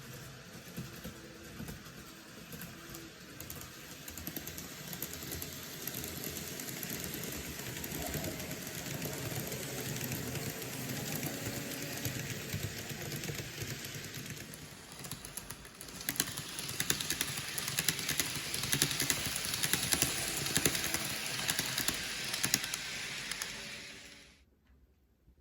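N-gauge Shinkansen 300 series model train running on model track: a small motor's steady whir with rapid fine clicking of wheels over rail joints. It grows louder, jumps louder at about two-thirds of the way through, then cuts off suddenly near the end.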